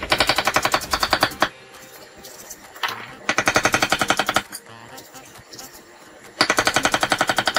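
Chef's knife chopping a red onion on an end-grain wooden chopping board: three bursts of quick, even knocks, about ten a second, each lasting a second or so.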